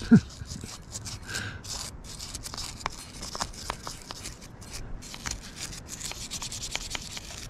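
Small brass-bristle brush scrubbing the metal turret of a Hardinge HC chucker lathe wet with Hoppe's No. 9 solvent, cleaning off rust: a run of scratchy rubbing strokes with bristles ticking against the metal.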